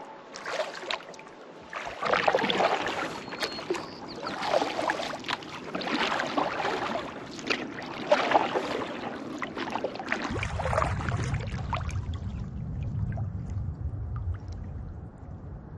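Kayak paddle strokes splashing and dripping in lake water, about one every two seconds, alongside the hull's water noise. About ten seconds in, the splashing fades and a low rumble takes over.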